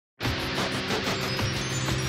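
Intro music with held tones and a steady pulse, starting a fifth of a second in.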